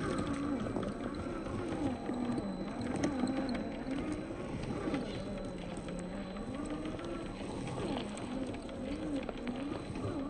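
Electric motor and gear whine of a 1/10-scale RC rock crawler, rising and falling in pitch as the throttle is worked while it climbs over dirt clods. Scattered small clicks and crunches of tyres on loose soil and clods.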